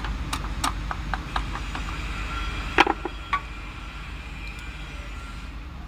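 Metal hand tools working on a Mercedes-Benz truck diesel engine while the rocker arms are being fitted: a quick, regular run of light metallic ticks, then a louder metal clank about three seconds in, over a steady low rumble.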